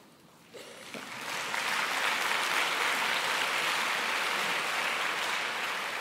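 Audience applauding. It starts about half a second in, builds within a second to a steady, dense clapping, and eases off a little near the end.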